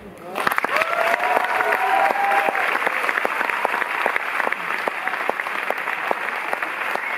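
Audience applauding. The clapping starts abruptly a moment in and keeps up steadily.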